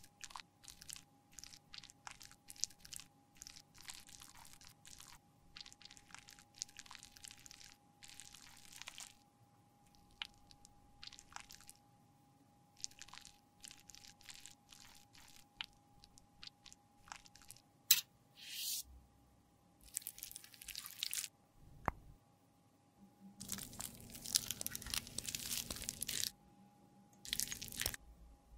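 Close-up scraping and crunching of a craft blade, then a dental floss pick, shaving crumbly old lipstick off the bullet: many short scrapes at first, then longer, louder crunching passes in the second half. A faint steady hum runs underneath.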